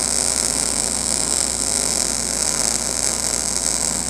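Wire-feed (MIG) welding arc crackling and sizzling steadily as a bead is run along quarter-inch steel plate.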